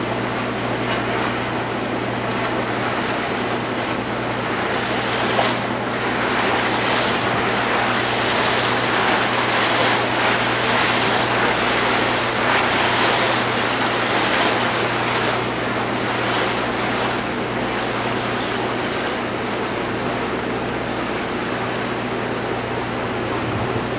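Steady low hum of a cruise ship's engine under a rushing wash of water and wind as the boat moves through the bay, the rush growing louder for several seconds in the middle.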